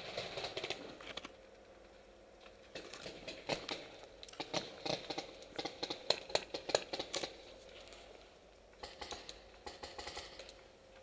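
Leaves and twigs rustling and crackling against the helmet camera as the wearer pushes through bushes, in irregular clusters of small clicks with a quiet stretch before them.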